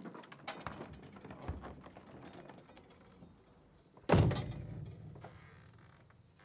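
Light footsteps and small clicks, then about four seconds in a door shuts with one loud, heavy thud that dies away over a couple of seconds.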